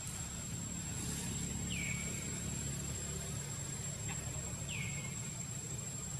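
Outdoor ambience: a steady low rumble and a steady thin high whine, with two short whistled calls about three seconds apart, each falling in pitch.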